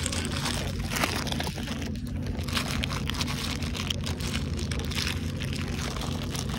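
Clear plastic bag crinkling and rustling as it is handled close to the microphone, in irregular crackles.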